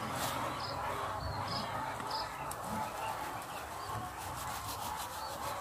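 A bird chirping in short, repeated high notes over steady outdoor background, with faint scraping and clicks of a knife cutting into the rind of a small jackfruit.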